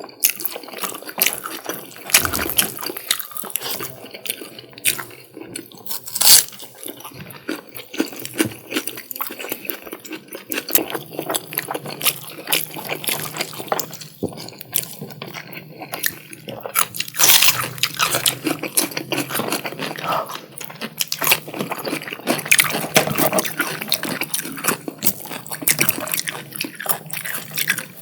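Close-miked eating of wet curry and rice: moist chewing, lip smacks and squishing mouth sounds in a dense run of quick clicks, with a few louder smacks.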